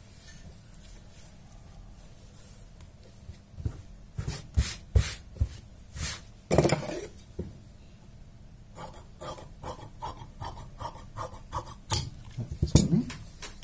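Hands handling cotton blouse fabric on a cutting table: after a few quiet seconds, cloth rustling and rubbing as it is folded and smoothed flat, with a run of short sharp taps and clicks.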